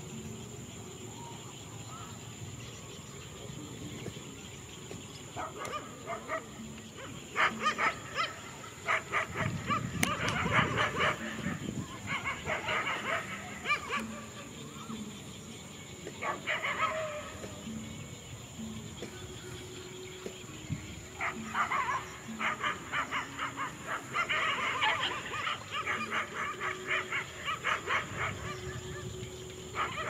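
A group of dogs barking in repeated bursts, with quieter stretches in between.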